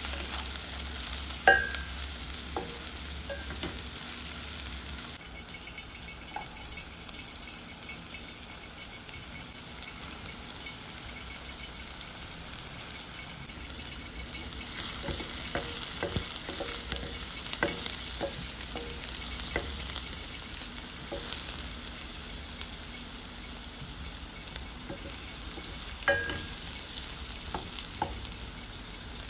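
Sliced onions sizzling as they brown in oil in a stainless steel pot, with a wooden spatula scraping and knocking against the pot as they are stirred. One sharp knock comes about a second and a half in, and the sizzle gets somewhat louder about halfway through.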